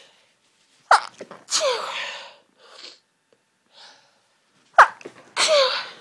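A woman gives two half-stifled sneezes, each a sharp catch followed by a breathy burst with a falling squeak, with short breaths between. They are part of a hay fever sneeze fit.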